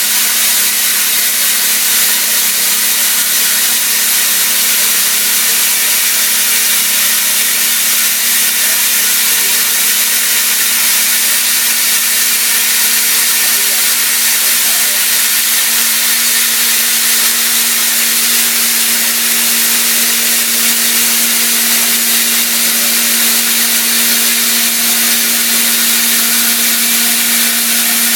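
CNC mill cutting silicon-carbide-reinforced aluminium with a CVD diamond end mill under coolant: a steady hiss of coolant spray and cutting noise with a steady machine hum whose tones grow stronger in the second half.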